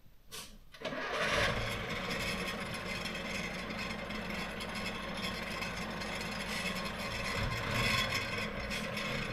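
Vintage IFA H6 bus's diesel engine starting about a second in, just after a short click, then running steadily.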